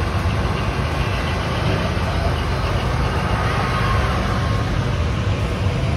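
Siemens Charger diesel-electric locomotive running steadily at close range, a constant deep engine rumble with a broad mechanical hiss.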